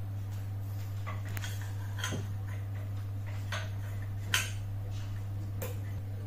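Scattered metallic clicks and clinks as a toothed saw blade and guard parts of an Eibenstock ETC 125 E1 cutter are handled and fitted, the sharpest knock about four seconds in, over a steady low hum.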